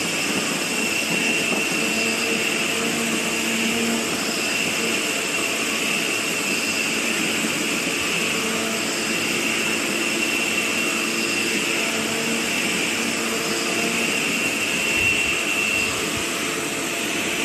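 CNC milling machine's end mill cutting an aluminium extrusion die under flood coolant: a steady machining noise with a high whine that swells and fades every few seconds as the cut goes on.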